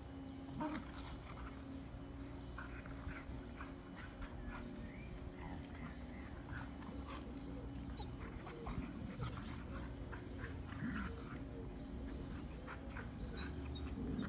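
Two Irish Terriers play-wrestling on grass: scuffling with short, scattered dog sounds.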